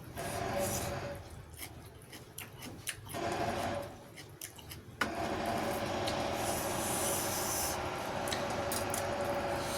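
JCB backhoe at work with a rapid rattling 'tat-tat-tat'. It comes in two short spells, then cuts in suddenly about halfway through and runs on steadily.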